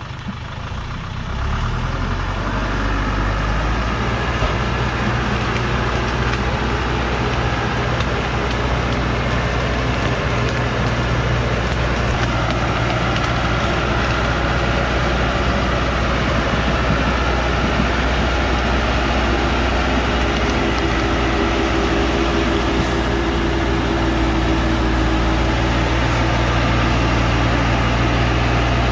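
Heavy diesel engine of a log-laden truck working hard under load as it climbs a muddy slope, steady after rising about a second and a half in. A whine joins in for several seconds in the second half.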